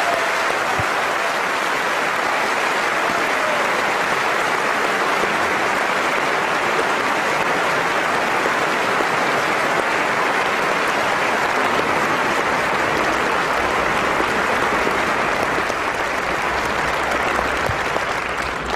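A large audience applauding steadily, the clapping tailing off near the end.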